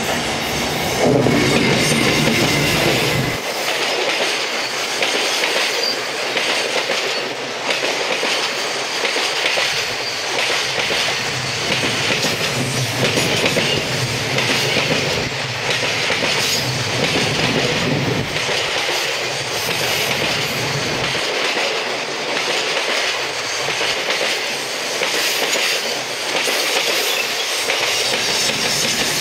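Container freight train climbing a steep grade, its wagons rolling past close by with a steady, rhythmic clickety-clack of wheels over the rails. It is loudest, with a heavier low rumble, about one to three seconds in.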